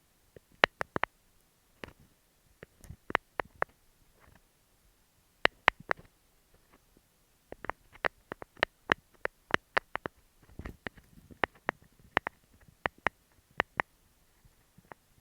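Fingernails tapping on an earphone microphone: sharp, irregular clicks, often in quick pairs and short runs, with a brief rubbing noise about ten and a half seconds in.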